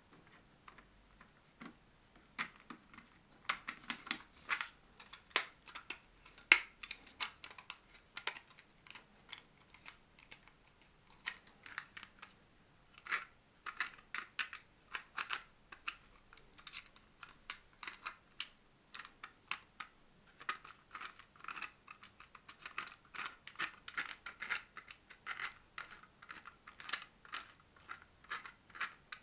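3D-printed plastic Geneva-mechanism day-of-week dial and gear being turned and handled by hand, giving a run of small, irregular plastic clicks and ticks in clusters with brief lulls.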